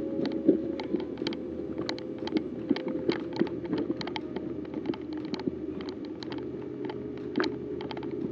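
Footsteps crunching and snapping through dry undergrowth, with sharp, irregular crackles several times a second over a steady low hum.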